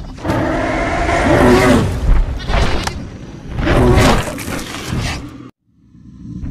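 Stampede sound effect: a heavy rumble of running herd animals with crashing, and loud animal calls that swoop up and down in pitch about three times. It cuts out suddenly about five and a half seconds in, then starts again.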